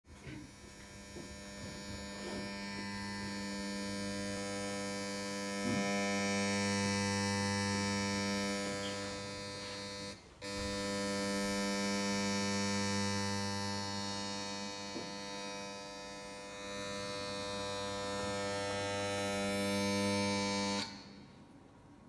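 A steady buzzing hum with many overtones that swells and eases in loudness. It drops out for a moment with a click about ten seconds in and cuts off suddenly near the end.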